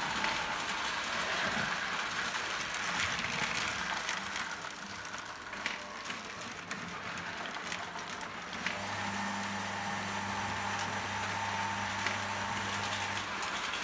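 Lionel O gauge toy train running on three-rail tinplate track, a steady rattle of wheels with scattered clicks over the rail joints. A steady hum joins in a little past halfway and stops shortly before the end.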